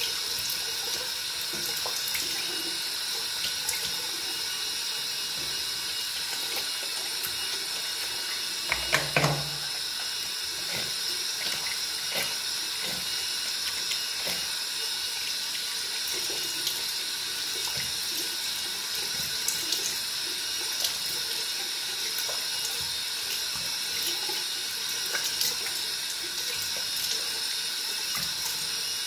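Water running steadily from a tap while a person splashes and rubs their face with soapy hands, with small splashes throughout and one louder thump about nine seconds in.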